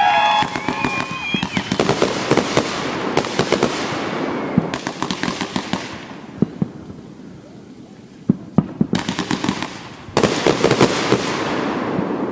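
Fireworks crackling and popping in dense, rapid volleys. The bursts thin out to a lull around the middle, then a fresh barrage starts suddenly about ten seconds in.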